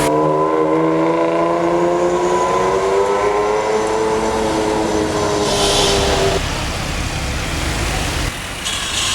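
Sports car engine running in a tunnel, its pitch rising slowly for about four seconds as it accelerates, then holding steady before cutting off about six seconds in. A low rumble follows.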